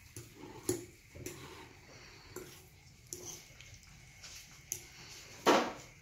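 Metal fork mashing avocado in a glass bowl: scattered clinks and scrapes of the fork against the glass with soft squishing. A short, loud burst of a voice cuts in near the end.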